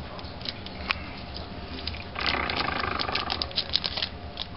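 A trading card pack wrapper is torn open with a rasping rip about two seconds in, lasting about a second. Crinkling and clicking follow as the wrapper and cards are handled.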